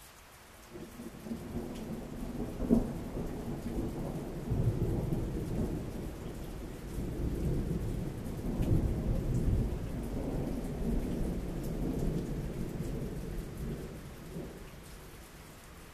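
A long roll of thunder over steady heavy rain. It builds about a second in, with a sharp crack about three seconds in, then rumbles on in several swells for over ten seconds before fading out near the end.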